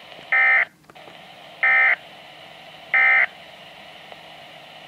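Weatheradio Canada's SAME digital alert data: three short identical bursts of warbling high tones, each about a third of a second long and spaced about 1.3 seconds apart, over faint radio hiss.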